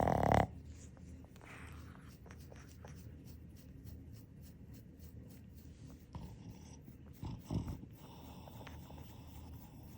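Sleeping Boston terrier snorting loudly once at the start and again about seven and a half seconds in, with quieter breathing and a soft scratchy rustle of a hand stroking its fur in between.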